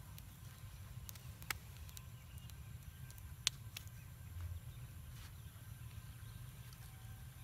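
Open wood fire burning, with a few sharp, scattered pops and crackles from the burning wood and bamboo, over a low steady rumble.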